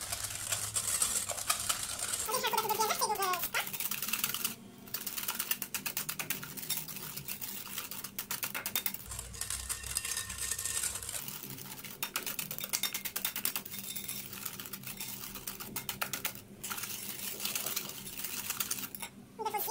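Wire balloon whisk beating eggs and sugar in a glass bowl, a fast, continuous clatter of the wires against the glass, stopping briefly a few times.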